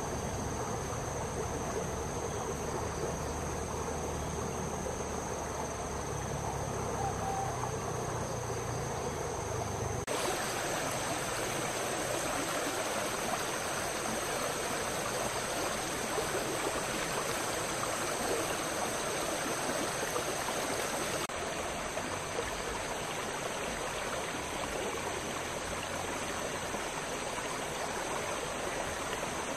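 Outdoor countryside ambience: a steady rushing noise with the steady high-pitched buzz of insects over it. The background changes abruptly about a third of the way in and again about two-thirds through.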